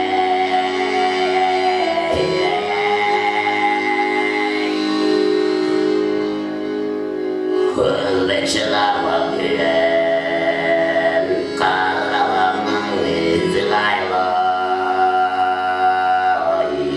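Bayan (Russian button accordion) playing long held chords over a steady drone, with a man singing into the microphone in Tuvan throat-singing style, in phrases a few seconds long.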